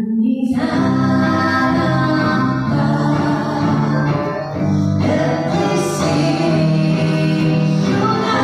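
Live band music: two women singing together into microphones over accordion and guitar accompaniment, holding long sustained notes.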